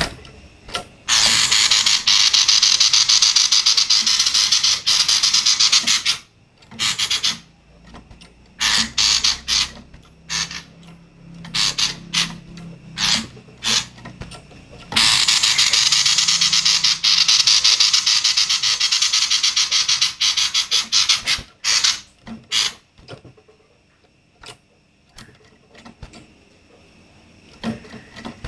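Female sirtu giving a harsh, rapid rattling chatter of the 'konslet' kind, coarse and kingfisher-like. It comes in two long bouts, one from about a second in and one near the middle, each around five to six seconds, with short broken bursts between and scattered clicks near the end.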